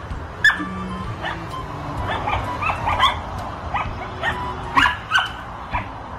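Dogs barking and yipping in play: a rapid string of short, high yips, with background music underneath.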